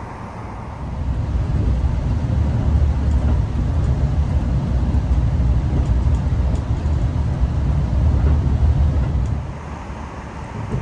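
E653-series INAHO limited express train running, heard from inside the passenger car: a steady low rumble that swells about a second in and drops back near the end.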